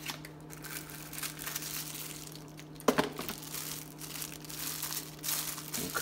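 Unboxing rustle: a small cardboard knife box being opened and a folding knife in a plastic sleeve handled, crinkling and scraping on and off, with one sharp tap just before the halfway point.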